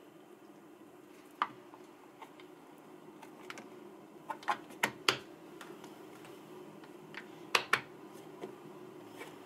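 Plastic lid pressed onto a glass food-storage dish and its snap-lock clips clicked shut: sharp plastic clicks, about four in a quick run midway and two more close together near the end, over a faint steady hum.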